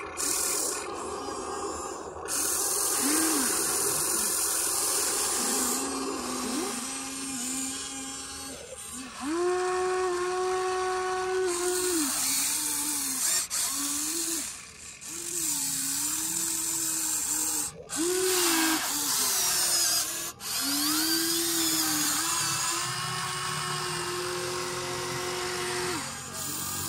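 Huina 1593 remote-control excavator's electric motors and gears whining as it works its boom, arm and bucket. Each movement is a whine that rises in pitch, holds and drops away, with a high gear hiss that starts and stops abruptly with the movements.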